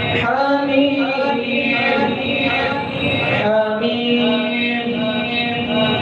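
A man's voice chanting a devotional recitation in long, held, melodic phrases that glide between notes.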